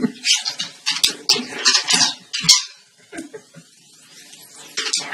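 Spring door stops being pawed and flicked by dogs, twanging and rattling in quick metallic strikes. The strikes come thick for the first couple of seconds, pause, then start again near the end.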